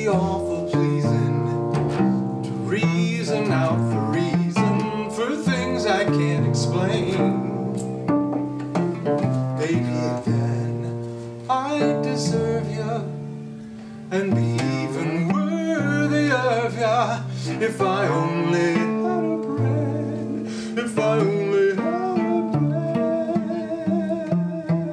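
Solo cello playing: a melody with vibrato over low held notes.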